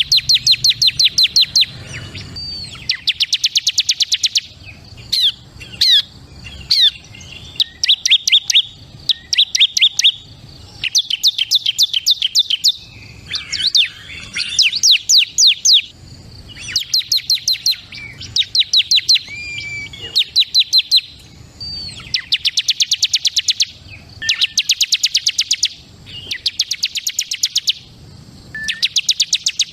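Bar-winged prinia (ciblek kristal) singing: bursts of fast trills of high, sharply repeated notes, each lasting one to two seconds, with short slurred calls between the bursts.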